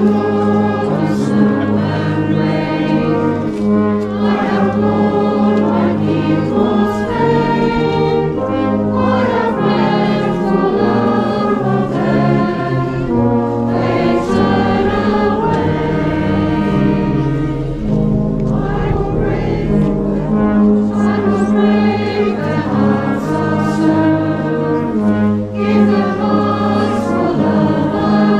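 Congregation singing a hymn together, accompanied by a brass band playing sustained chords.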